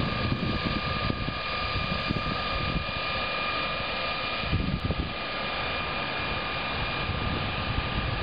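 A steady mechanical drone with a few faint steady whining tones, under a low irregular rumble of wind on the microphone.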